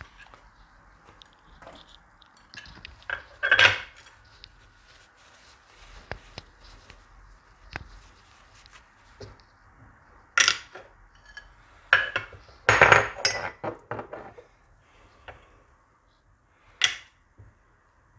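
Glass petri dish clinking and clattering as it is handled and set down on a stone countertop, with a ferrous sulfate crystal inside. It makes a few separate sharp clinks, the loudest about three and a half seconds in and a cluster around twelve to thirteen seconds.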